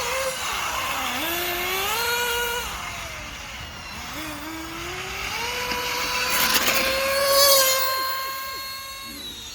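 RC race cars' motors whining, rising in pitch twice as the cars accelerate, then holding a steady high whine that swells loudest about seven and a half seconds in before fading.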